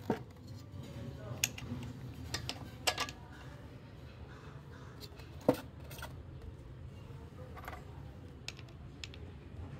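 Metal clinks and taps of bolts, nuts and cast pump casing being handled while the pump head is fitted to an electric motor. About ten irregular sharp clicks, the loudest about halfway through.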